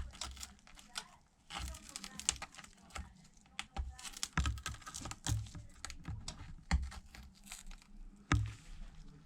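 Irregular crackling, clicking and tearing as a pry tool works under the shattered glass of an iPad Pro 12.9 (3rd gen) screen, breaking it free of its adhesive.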